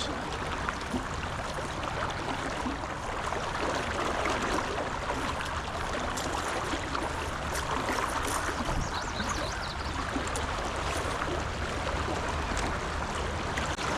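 Fast-flowing creek water rushing steadily, the creek running high and fast.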